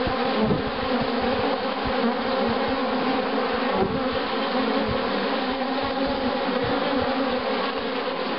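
Dense, steady buzzing of many honeybees flying in front of a hive entrance, several hum pitches layered together: young bees on orientation flights, learning where their hive is.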